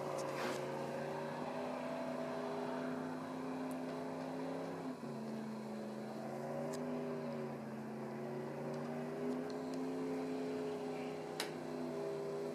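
An engine running steadily, its speed wavering slightly with a brief dip about five seconds in, then winding down near the end.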